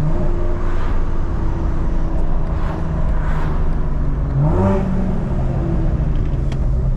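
BMW G82 M4's S58 twin-turbo inline-six running at low rpm through a stainless Valvetronic exhaust with the valves open, a steady mellow note without drone or rasp. The revs climb briefly about four and a half seconds in, then hold.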